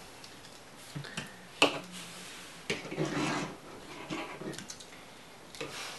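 Hard plastic clicking and rubbing as the joints and panels of a translucent plastic Transformers figure are twisted and snapped into place by hand, with one sharp click about one and a half seconds in and a rough rubbing stretch around the middle.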